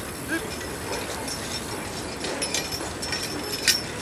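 Light metallic clinking and rattling of the harness and plow hardware of a two-horse draft team over a steady outdoor hiss. The clinks come thicker in the second half, with one sharper click near the end.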